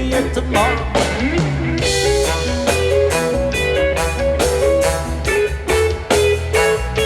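Background music: a rock song with a steady beat, bass and electric guitar, in an instrumental stretch between sung lines.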